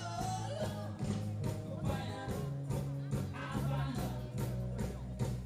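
A live band playing an up-tempo rock song, with a sung melody over a steady drum beat.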